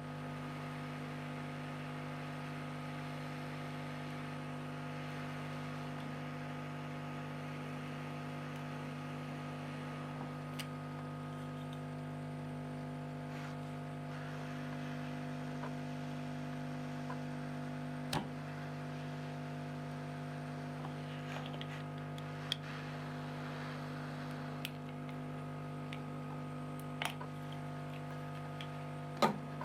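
Steady electrical hum with several stacked tones, broken by a handful of sharp, isolated clicks spread through, the loudest near the end.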